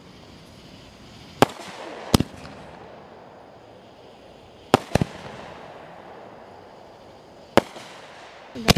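Fireworks going off: about six sharp bangs, some coming in close pairs, each with a short echoing tail.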